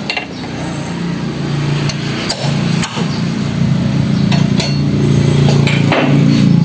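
Metal hand tools knocking and clinking on car suspension parts during a repair: a handful of sharp separate strikes over a steady low hum.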